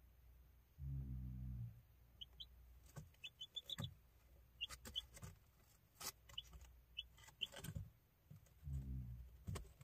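A chick giving short, soft high peeps in small clusters, with scattered sharp clicks or taps. A low hum lasting under a second comes about a second in and again near the end.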